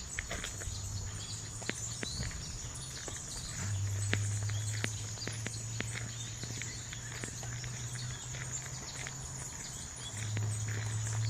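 Outdoor walk ambience: irregular light footsteps and ticks over a steady high-pitched drone, with faint bird calls. A low rumble swells about four seconds in and again near the end.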